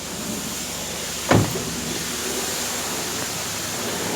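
One sharp thump about a second in, over a steady, even running noise.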